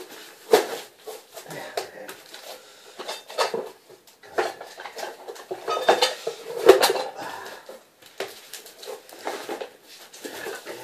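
Irregular clicks, knocks and light clattering from hand work on a floor being prepared for laminate, with some rustling in between; the sharpest knock comes about two thirds of the way in.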